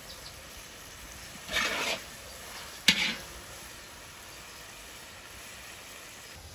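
A metal spatula scraping against metal cookware about one and a half seconds in, then a sharp clank with a short scrape about a second later.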